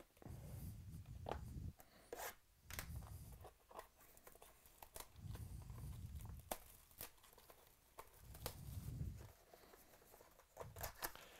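Cardboard hobby box of football cards handled up close: lifted off a stack, turned over and its seal tape picked at and torn, in a run of small sharp clicks, scrapes and tearing sounds with several soft low rumbles of handling.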